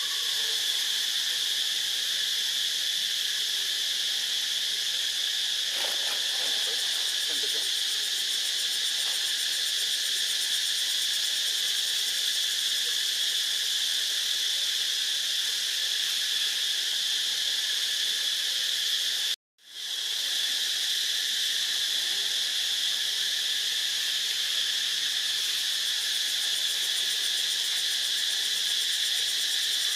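Steady, high-pitched drone of an insect chorus. It cuts out for an instant about two-thirds of the way through and fades back in.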